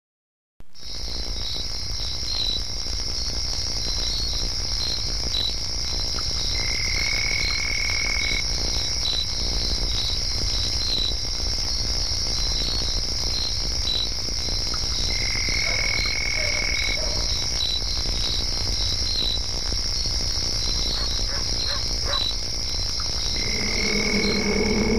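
Night-time ambience of crickets and other insects: a steady high trill with regular chirps over it, a longer high note three times about eight seconds apart, and a low rumble underneath.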